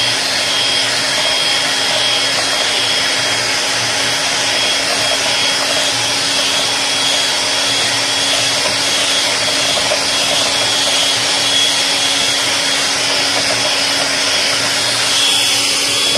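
Electric hand mixer running at a steady speed, its beaters whipping a thin cream mixture in a plastic bowl, with an even motor whine that holds one pitch.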